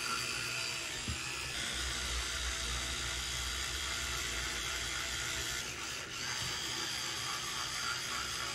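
Electric toothbrush running while brushing teeth, a steady buzz with a brief dip about six seconds in.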